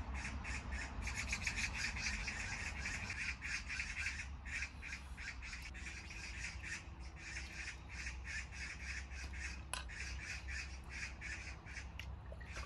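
Rapid, steady pulsed chirping from an animal, about eight pulses a second, high-pitched and unbroken.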